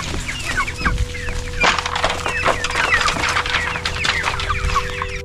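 A flock of chickens clucking and calling all together, many short overlapping calls, with many small clicks mixed in.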